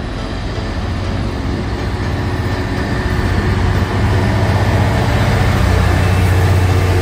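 Freightliner Class 66 diesel locomotive's two-stroke EMD V12 engine approaching and passing close by at the head of a container train. Its low engine rumble grows steadily louder, strongest from about halfway in as the locomotive draws level.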